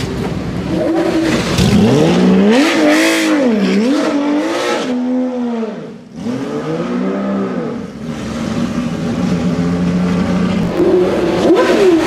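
A sports car engine being blipped on the throttle again and again, its pitch swooping up and down. The sound breaks off sharply about halfway through, then more revs follow and it settles into a steadier run.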